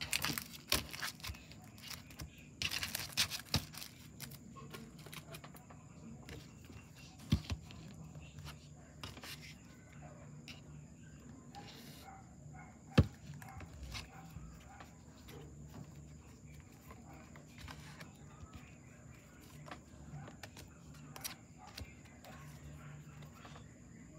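Quiet handling sounds of packing work: scattered light clicks, taps and rustles, with a sharper knock about 13 seconds in, over a faint low hum.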